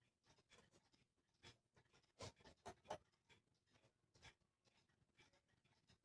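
Faint, irregular scratching and light clicks of small cuckoo-clock parts being handled and rubbed during cleaning, a little louder a couple of seconds in.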